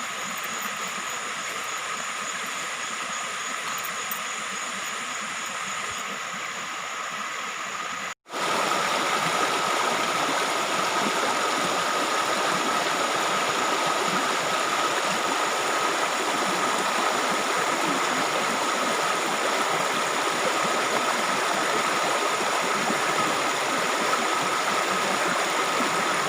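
Water flowing steadily in a stream, a continuous rushing. It cuts out briefly about eight seconds in, then comes back louder with a steady high tone over it.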